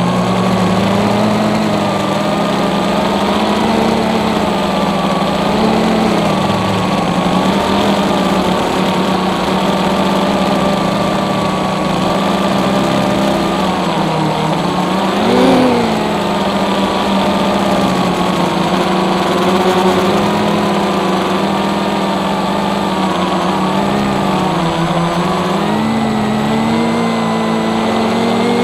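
FPV racing quadcopter's motors and propellers whining, heard from on board, the pitch wavering up and down with the throttle, with a brief sharp surge in pitch and loudness about halfway through.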